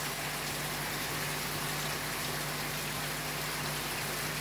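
Heavy rain falling steadily on a terrace, an even hiss of drops with a faint low hum underneath.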